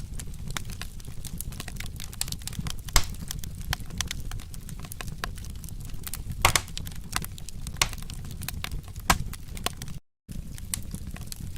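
Wood fire crackling, with irregular sharp pops over a low steady rumble. The sound cuts out for a moment about ten seconds in.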